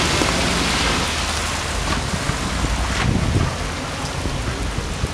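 Heavy rain pouring down in a thunderstorm, a steady dense hiss with a low rumble underneath and a few dull thumps about three seconds in.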